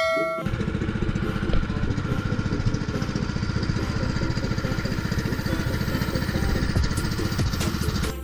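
Outrigger boat's small engine running steadily, a fast even pulsing, with wind and water noise over it. A short chime sounds at the very start.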